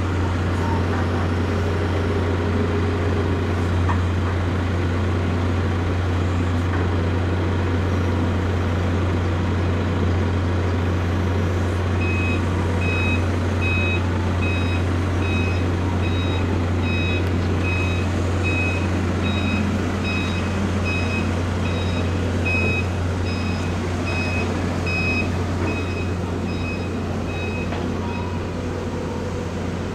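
Forklift reversing alarm beeping steadily, about one and a half beeps a second, as the forklift backs away. It starts about twelve seconds in and stops near the end, over a steady low hum.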